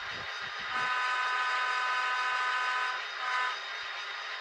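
Model diesel locomotive's sound-decoder air horn, played through the loco's small onboard speaker: one long blast, then a short one near the end, over a steady hiss of the decoder's diesel engine sound.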